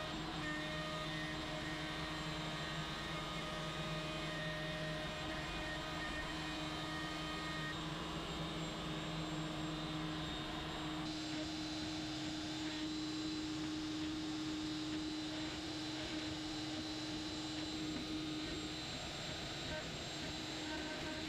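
CNC router running steadily, its router spindle whining as the bit cuts into MDF. The sound changes about halfway through, where a V-bit is engraving the board.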